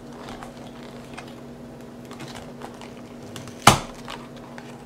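Small clicks and rustles of a cardboard toy box being handled and its top flap pried open, with one loud, sharp snap about three and a half seconds in.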